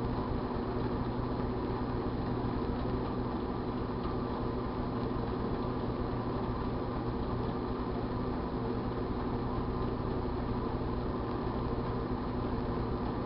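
1978 GE Dual Wave microwave oven running: a steady electrical hum with its fan.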